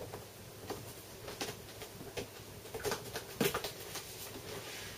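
A cardboard box being opened and its packaging handled: a handful of scattered scrapes, taps and rustles.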